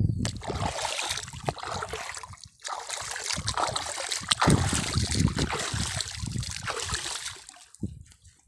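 Water splashing and trickling, with a short break about two and a half seconds in, fading away near the end.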